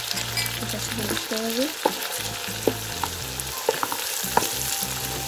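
Chicken, carrots and cabbage sizzling in hot oil in a wok with soy sauce just added, stirred with a slotted spatula that knocks against the pan about six times in the second half.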